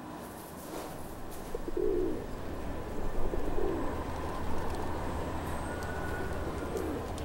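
Pigeons cooing, about three low coos spread over a few seconds, over a steady low hum of open-air background noise.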